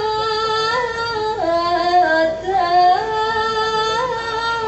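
A female sinden singing Javanese vocal melody into a microphone, holding long notes with slow bends, dipping to lower notes in the middle before rising back to the held note.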